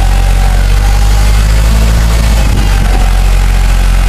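Kubota L5030 compact tractor's diesel engine running steadily under load as the tractor churns through deep mud, its pitch wavering briefly a little past halfway.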